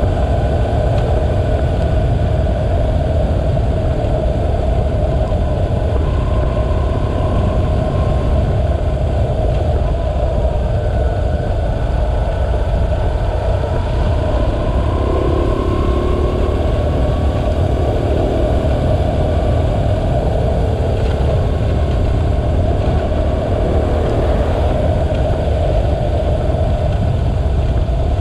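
BMW R1100RT's air-cooled boxer twin engine running steadily as the motorcycle rides along, mixed with heavy wind and road noise on the bike-mounted microphone. Its pitch drifts up and down slightly a few times.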